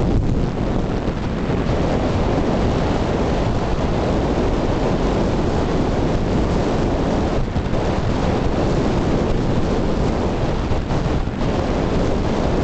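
Steady, loud wind buffeting the microphone of a camera moving fast along a road, a rushing noise heaviest in the low end.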